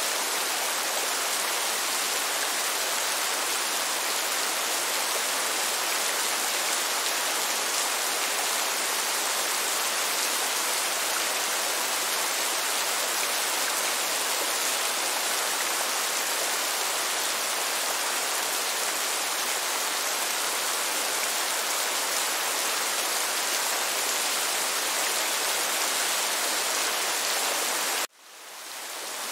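Steady rain falling, an even hiss. Near the end it drops out abruptly and fades back in over about a second.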